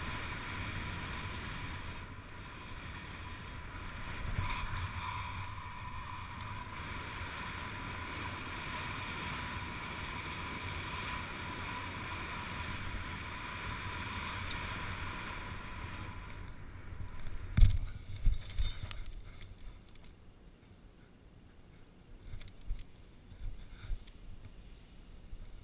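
Steady wind rushing over a helmet camera under an open parachute canopy during the final approach, with a thin steady whine alongside. Some 17 seconds in the wind dies away and a sharp thump, then a few smaller knocks, mark the touchdown, followed by faint scattered rustling as the canopy settles.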